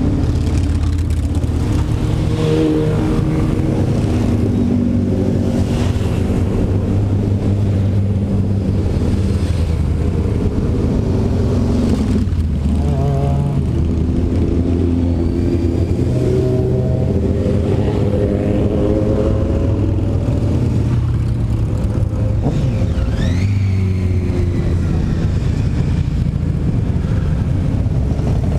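A long procession of motorcycles riding slowly past one after another, many engines running at once, their pitch rising and falling as each bike nears and goes by, with occasional blips of the throttle.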